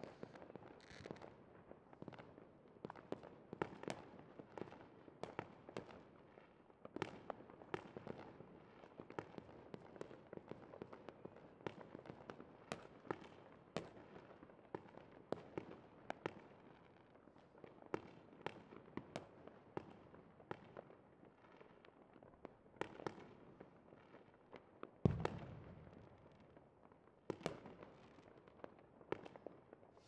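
Fireworks display: a steady, irregular scatter of sharp pops and cracks, several a second, with one deeper, louder boom near the end.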